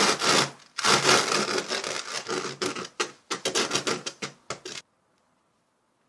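Fingers rubbing and pressing loose glitter in a popsicle-shaped mould: a gritty scratching rustle in a quick run of strokes that stops suddenly about five seconds in.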